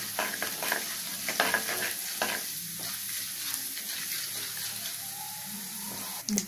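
A tempering of mustard seeds, cumin, chana dal and urad dal sizzling in hot oil in a pan, with a spatula stirring and scraping through it; the scraping clicks are busiest in the first couple of seconds, and there is a sharper knock near the end.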